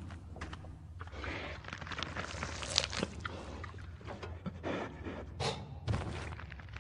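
Cave sound design from an animated film: a steady low rumble under scattered crunches, clicks and thuds, like rock and debris shifting. The sharpest hits come about three seconds in and again about five and a half seconds in.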